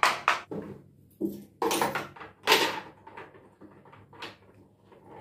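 Hard plastic bathroom corner shelf knocking and scraping as it is handled and set against a tiled wall: a run of sharp knocks and rattles, the loudest about two and a half seconds in, then lighter taps.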